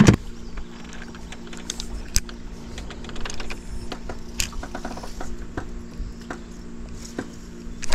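Fishing tackle being handled in a jon boat: scattered light clicks and taps over a steady low hum.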